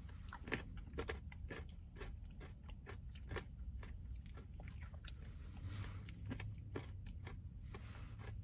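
A person chewing a spoonful of frozen custard mixed with crunchy Heath toffee pieces and chocolate chips, close to the microphone: a quiet run of irregular crunches.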